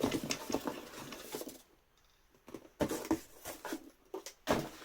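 Packaging being handled and unwrapped by hand: quick light rustles and clicks in two spells, with a pause of about a second between them.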